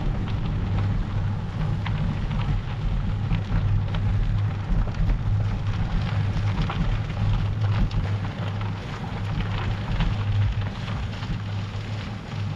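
Wind buffeting a bike-mounted camera microphone in a steady low rumble, over bicycle tyres rolling on a gravel road with many small ticks and crackles from loose stones.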